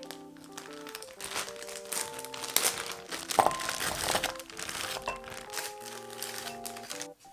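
A plastic bag of frozen kabocha squash pieces crinkling as it is snipped open with scissors and the pieces are shaken out into a glass bowl, with many small knocks and crackles as they drop in. Light background music plays throughout.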